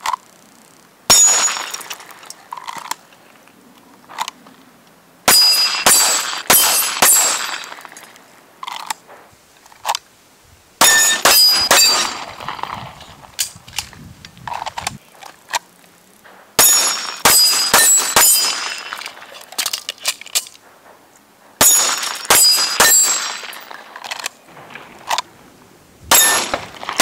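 Handgun fired in quick strings of several shots, a few seconds apart, at steel plate targets that ring on hits. A single shot comes about a second in, then about five strings follow.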